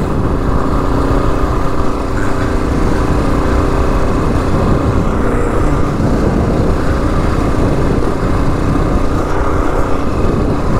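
A 2022 Kawasaki KLR 650's single-cylinder engine running steadily under way through a Lexx slip-on exhaust, with wind rushing over the microphone.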